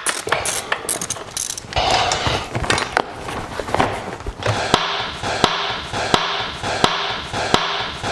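Ratchet wrench clicking, with the clatter of tools and parts, as the seat of a Yamaha TW200 is unbolted and lifted off. The clicks come thick and irregular at first; about halfway through they settle into sharp clicks roughly every 0.7 seconds.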